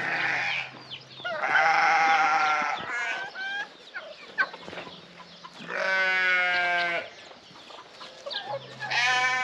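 Roosters crowing: about four long calls a few seconds apart.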